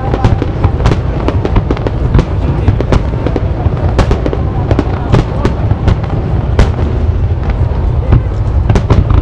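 Aerial firework shells bursting in rapid succession: many sharp cracks and reports over a continuous deep rumble of booms.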